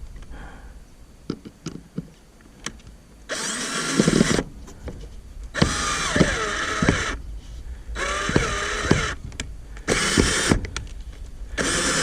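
Power drill run in five short bursts into wood, making a hole in the middle of a wooden coop door for a latch screw; the motor's whine sags and recovers in pitch within each burst. A few light clicks come before the first burst.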